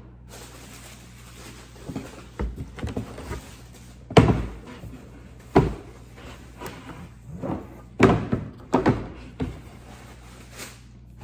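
Rummaging in a large cardboard shipping box: cardboard and packaging rustling and scraping, with sharp thunks at irregular intervals as the box and its contents are knocked about.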